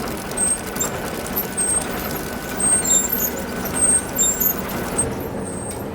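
Urban road traffic: a steady rumble of passing vehicles, trucks or buses, with short high squeals scattered through it and a few louder swells about three and four seconds in.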